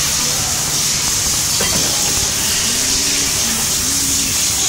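Steady hiss from a hydraulic rubber compression-molding press as its mold plates close, with a single click about a second and a half in.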